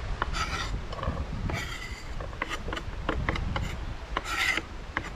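Kitchen knife cutting an onion on a wooden cutting board: a run of short knocks of the blade on the board, with a few longer rasping strokes as it slices through.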